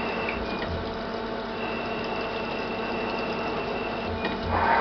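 Citizen Cincom E32 CNC automatic lathe cutting under flood coolant: a steady machine hum with coolant splashing, and a high steady whine that drops out early on and comes back after about a second. A louder swelling sound rises near the end.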